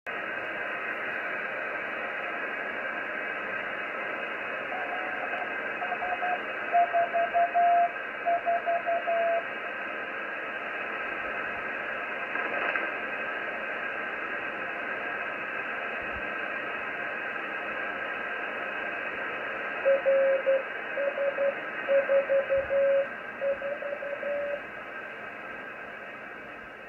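RS-44 (DOSAAF-85) satellite's CW beacon received on a radio: on-off keyed Morse code tones over steady receiver hiss. The tones come in two runs, about 5 seconds in and about 20 seconds in, the second a little lower in pitch.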